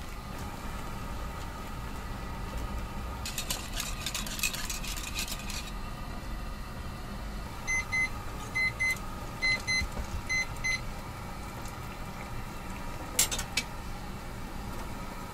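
An electronic beeper sounding short double beeps, four times in about three seconds, over a steady kitchen hum. Before it comes a couple of seconds of metal clattering, and near the end a single sharp metal clank.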